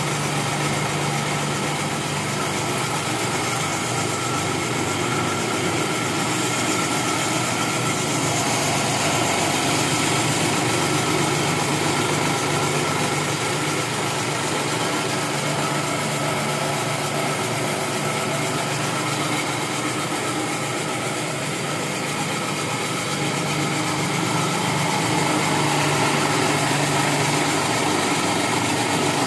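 Homemade foam-cutting machine running steadily: a continuous motor hum with a whirring noise that swells and eases a little at times.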